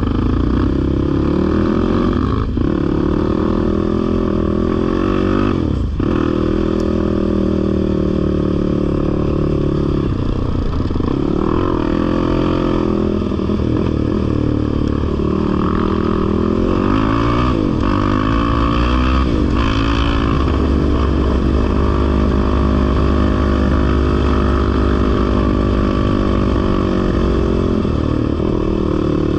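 Off-road vehicle engine running under way on a trail, its pitch rising and falling with the throttle. The revs drop briefly about two and a half and six seconds in.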